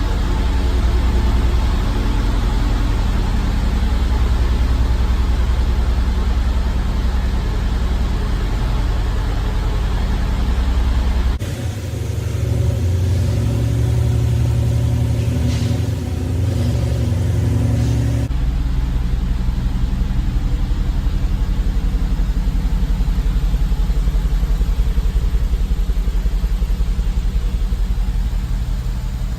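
A car engine running steadily with a deep rumble. About a third of the way in it cuts abruptly to a different engine sound, and it cuts back again some seven seconds later.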